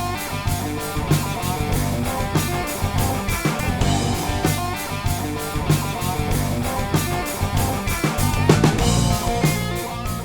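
A rock band jamming: drum kit beating a steady rhythm under electric guitars and bass guitar, beginning to fade out near the end.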